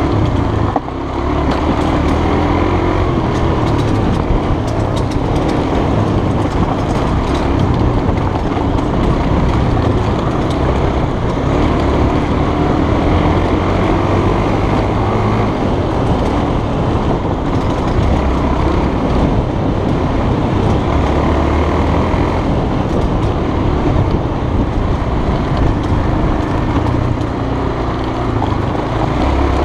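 Honda trail bike engine running along a rough dirt track, its note shifting up and down with the throttle, under steady wind rush on a helmet-mounted microphone. The sound drops briefly about a second in.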